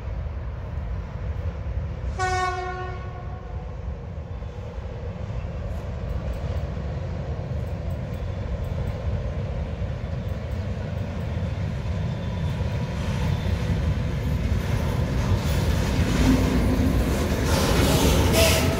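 A train sounds its horn once, a short single-note blast about two seconds in, over a low rumble that grows steadily louder as the train approaches. Near the end the clatter of wheels on the rails comes in as it draws close.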